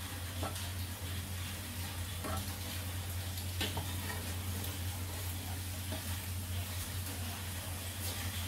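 Litti (sattu-stuffed wheat dough balls) sizzling steadily as they deep-fry in hot ghee in a kadhai, with a steady low hum underneath. A few light clicks of a metal spoon against the pan.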